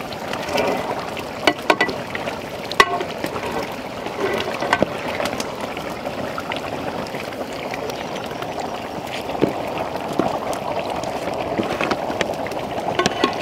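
Raw tuna chunks slid by hand off a steel tray into a large pot of curry: steady wet sloshing and plopping, with a few sharp knocks, the loudest near the start.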